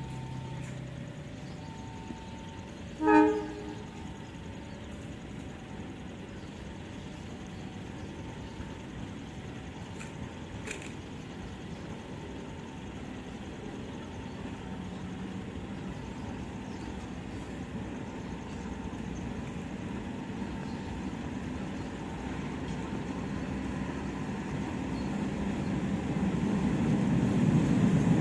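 KAI CC 203 diesel-electric locomotive hauling a passenger train, approaching at restricted speed. One short horn toot about three seconds in, then the engine's rumble grows steadily louder as it draws near.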